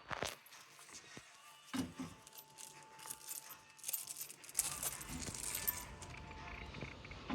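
Metal bed-frame parts and hardware clinking and rattling as they are handled and fitted together, with a few sharp clicks and a stretch of light clattering in the middle.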